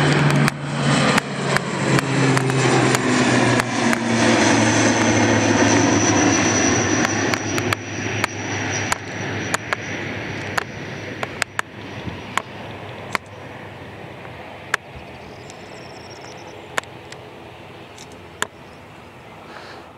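ATR 72 turboprop climbing out after takeoff: its propellers and engines give a loud low drone that fades over the second half as the aircraft climbs away. Repeated sharp knocks from the stiff tripod head being panned to follow it.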